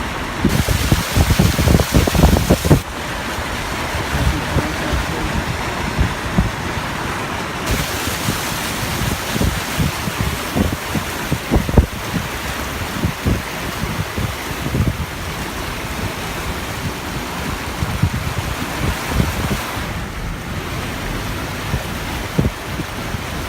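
Wind buffeting the microphone in irregular gusts, heaviest in the first few seconds, over a steady rushing noise.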